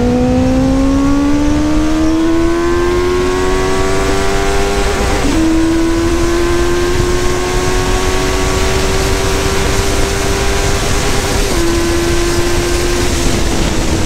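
Benelli motorcycle engine pulling hard at high speed, its note rising steadily through each gear with two quick upshifts, one about five seconds in and one near the end. Heavy wind rush is heard throughout.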